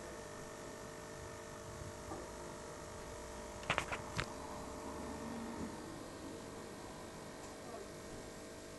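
Steady electrical hum of running aquarium equipment, the air pump and filter that keep the tank's air-stone bubbling, with a few short sharp clicks around the middle.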